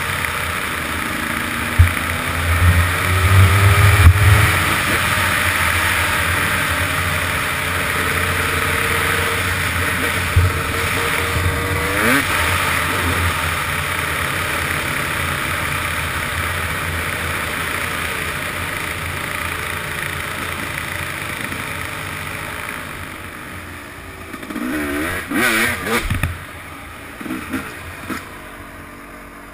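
Dirt bike running at road speed, its engine pitch rising and falling with the throttle under steady wind rush on a helmet-mounted camera. Near the end the engine drops to a few short throttle blips as the bike slows onto a gravel driveway.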